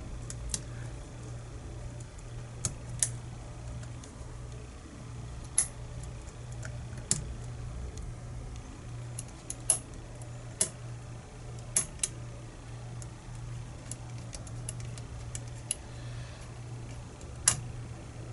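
Small metal clicks and taps at irregular intervals as a lock cylinder and small tools are handled, over a steady low hum.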